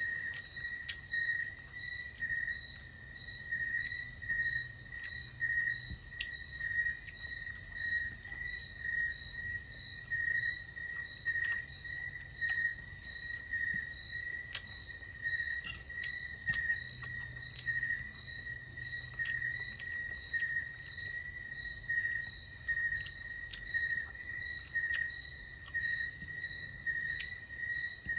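Insects chirping in one steady high-pitched trill that swells and fades in pulses about once a second. A few faint clicks sound over it.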